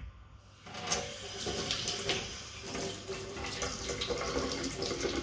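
Tap water running into a stainless steel sink and splashing over a prawn rinsed under the stream by hand. The flow starts about a second in.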